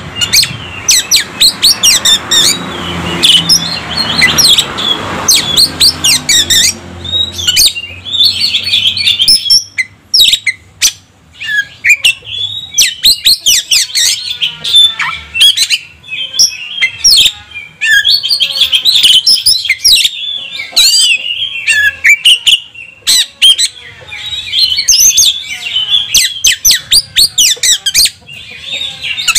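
Oriental magpie-robin singing a fast, varied song of sharp whistles, chirps and harsh notes, almost without pause, with a short lull about ten seconds in.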